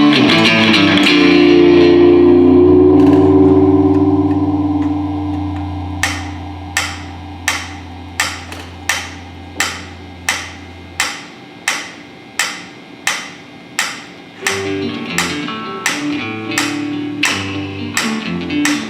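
Live improvised instrumental music on plucked strings: held low notes slowly die away, while from about six seconds in a steady pulse of sharp taps, roughly three every two seconds, takes over. Near the end new plucked notes come in under the taps.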